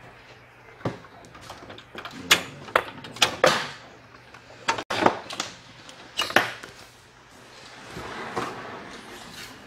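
A series of sharp knocks, clicks and clatters as hard objects are handled around an open desktop computer case, with a softer rustle near the end.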